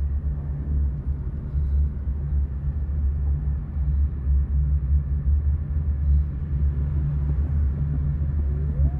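A deep, steady low rumble, a dark ambient drone that wavers in level. Near the end a faint eerie tone rises and falls.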